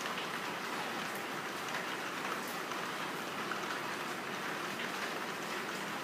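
Steady rain falling, with scattered small drop ticks.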